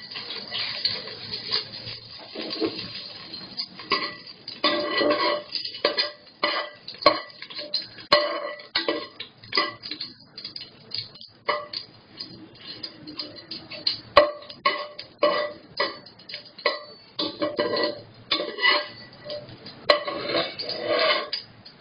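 Perforated metal ladle scraping and clinking against the inside of a metal pressure cooker in quick, irregular strokes while whole spices are stirred in hot oil.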